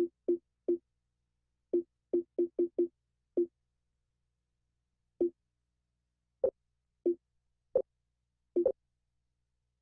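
Short electronic beeps, about fifteen of them at uneven spacing, with a quick run of them around two seconds in and then sparser ones. Each is a brief pitched blip with dead silence between.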